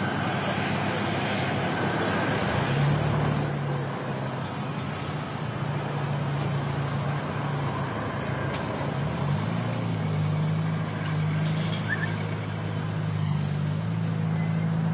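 Steady jet engine noise from taxiing airliners, with a low engine hum that comes in about three seconds in, drops out briefly past the middle, and returns.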